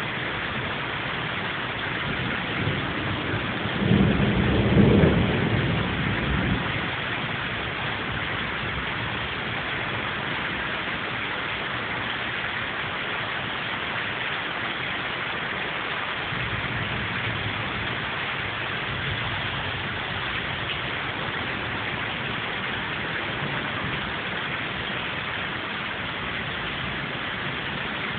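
Steady rain falling, with a roll of thunder starting about three seconds in, peaking a second or two later and fading out by about seven seconds. Fainter rumbles swell briefly later on.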